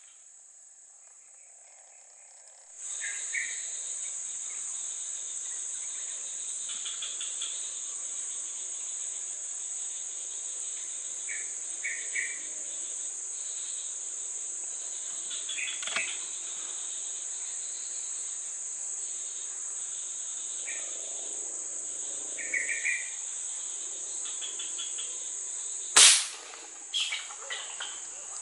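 A steady high-pitched insect drone that comes in abruptly about three seconds in, with a few short bird chirps scattered through it. About two seconds before the end, a single sharp, loud air-rifle shot.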